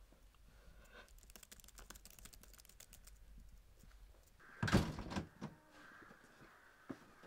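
Laptop keyboard typing, a quick run of light key clicks, followed about halfway through by a single loud thud and a few fainter knocks.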